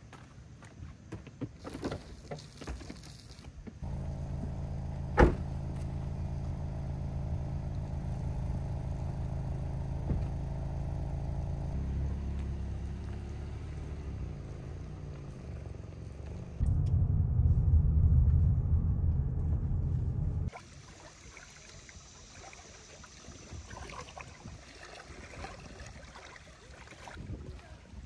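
Mazda CX-5 SUV's engine idling steadily, with a single sharp thump about a second after it begins, like a car door shutting. A louder low rumble follows for a few seconds and cuts off abruptly.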